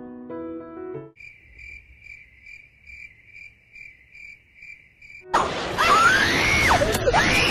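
Soft piano music ends about a second in. It gives way to a cricket-chirping sound effect: evenly spaced high chirps, about two or three a second. About five seconds in this cuts to loud, shrill cartoon screaming whose pitch swoops up and down.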